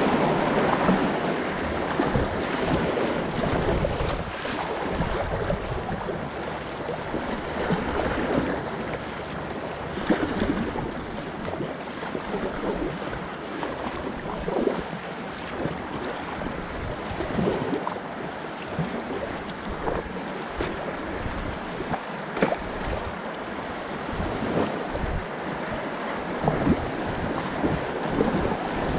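Whitewater rushing around a kayak, with irregular paddle splashes and wind buffeting the camera microphone.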